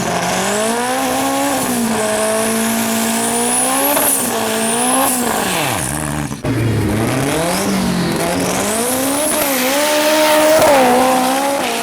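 Nissan SR20 four-cylinder engine of a drag-racing van at full throttle down the strip, its pitch climbing and dropping sharply several times as it shifts up through the gears.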